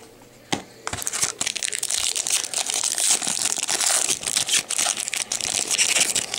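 Foil wrapper of a trading-card pack crinkling and tearing as it is opened by hand, a dense run of crackles starting about a second in.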